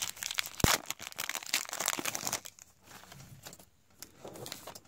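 Trading card pack wrapper crinkling and tearing as it is opened by hand. It is loud and dense for the first two and a half seconds, with a sharp snap about half a second in, then fades to quieter rustling.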